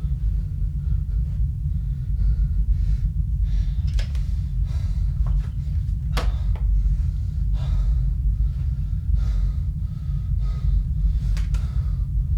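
A steady deep rumble with scattered sharp knocks over it, the strongest a little past six seconds in.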